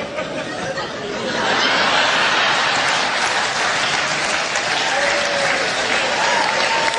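Studio audience laughing and applauding; the applause swells sharply about a second in and holds at full strength.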